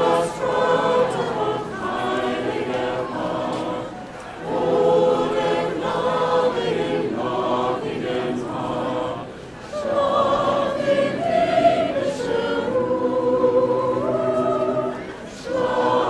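Mixed choir of men and women singing a carol unaccompanied in the manner of a lullaby, in long held phrases with short breaths between them, about every five seconds.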